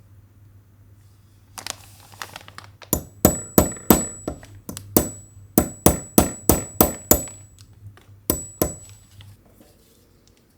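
A quick series of about fifteen sharp knocks, roughly three a second, in three runs with short pauses, with a faint high metallic ring under them, as of repeated hammer-like blows.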